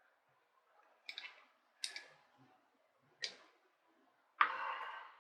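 Metal engine parts and tools being handled on a workbench while a Saito FA-50 model glow engine is taken apart: three sharp clicks, then a longer rattle near the end.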